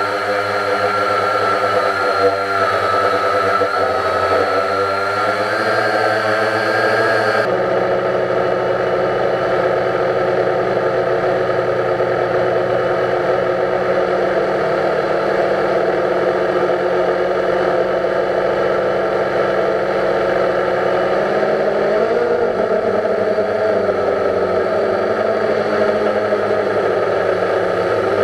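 Drone's electric motors and propellers whirring with a steady high whine, picked up by the camera on board; the sound changes abruptly about seven seconds in, and the pitch rises and falls briefly near two-thirds of the way through as the motors change speed.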